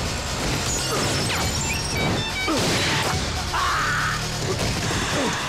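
Action-film fight soundtrack: background music with crashing and hitting sound effects layered over it.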